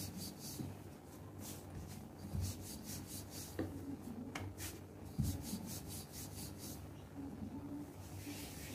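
Wooden rolling pin rolling out a disc of paratha dough on a stone countertop: soft rubbing strokes, repeated back and forth.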